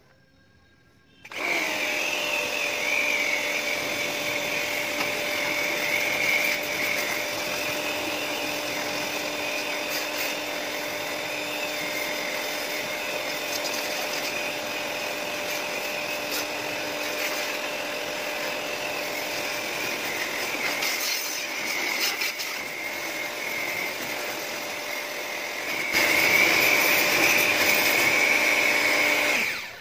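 HNL small electric high-pressure washer starting about a second in and running steadily, its motor whine over the hiss of the water jet, with the spray gun's trigger held down throughout rather than released. It grows louder a few seconds before the end, then cuts off suddenly when switched off at the machine's power switch.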